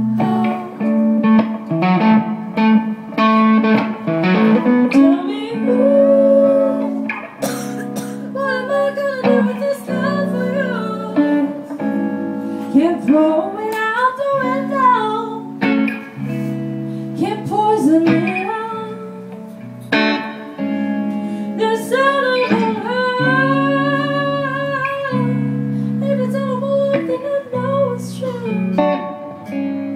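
Live song: a woman singing a melody over chords on her electric guitar.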